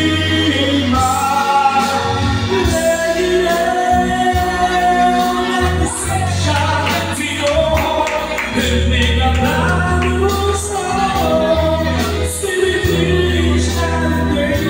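A man singing into a microphone over backing music with a strong low bass.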